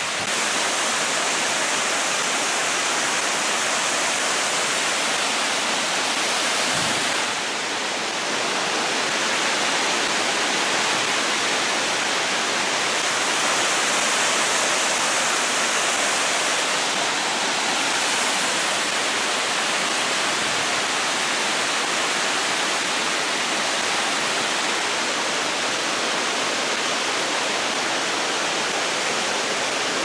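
Albion Falls, a stepped cascade waterfall, rushing steadily as water tumbles down over the rock ledges.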